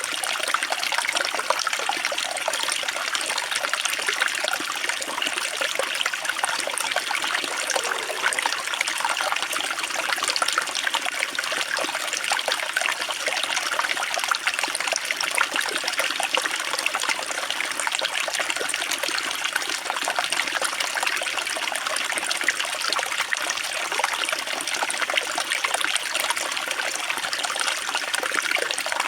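Water trickling and splashing steadily, a continuous patter of small splashes.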